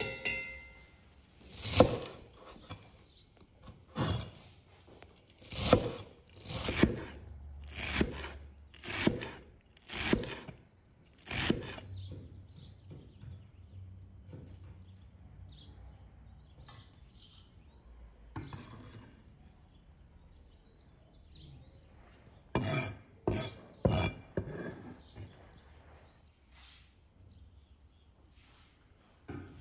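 Separate sharp knocks and clinks of cooking utensils being handled: about eight spaced a second or two apart, a quieter stretch, then a quick run of four or five about three quarters of the way through.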